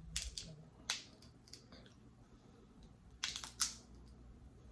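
Close-up eating sounds: a few short sharp clicks and crackles, one about a second in and a small cluster a little past three seconds, over quiet room tone.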